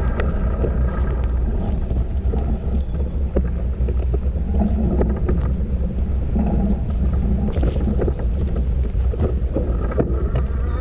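Wind rumbling on the microphone during an e-bike ride, with scattered knocks and rattles from the bike on the trail.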